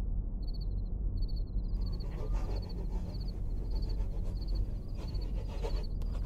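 Insect chirping, likely a cricket, in short repeated pulses at a steady pace of about three chirps every two seconds, over a low steady rumble. A rustling noise joins from about two seconds in and fades out near the end.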